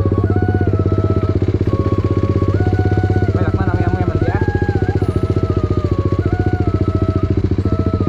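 A motorcycle engine running steadily at an even speed while riding, with background music playing a tune of held notes over it.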